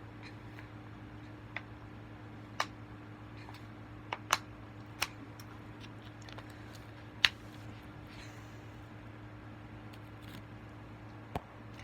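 About seven sharp, irregularly spaced clicks and taps, the loudest a little past the middle, over a steady low hum.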